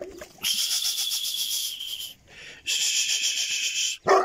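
Pakistani bully dog on a leash letting out two long, high-pitched whining squeals, each over a second long, then a sharp bark at the very end.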